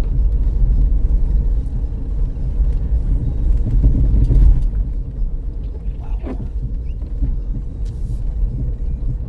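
Steady low rumble of a 2005 Dodge Caravan minivan driving, heard inside the cabin, swelling a little around four seconds in.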